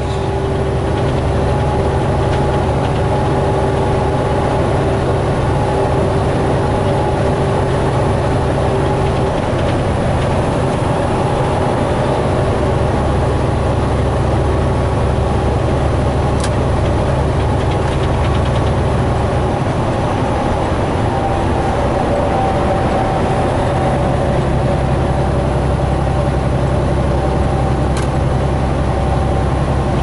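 Inside a semi-truck cab at highway speed: the steady drone of the diesel engine and road noise, with two faint clicks.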